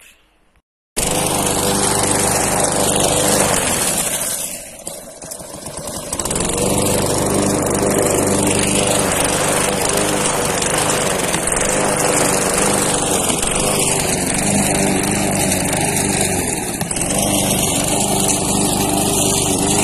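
Walk-behind lawn mower running steadily as it is pushed across grass. It starts abruptly about a second in and drops in loudness for about two seconds around four seconds in before coming back up.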